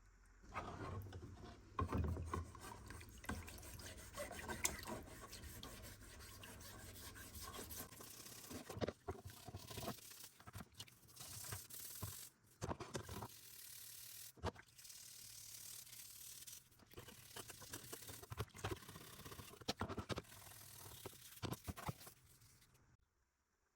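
A rusty metal sickle blade being scrubbed by hand with a brush, a continuous rough rubbing and scraping with irregular knocks, as the residue left by electrolysis is cleaned off. It stops abruptly near the end.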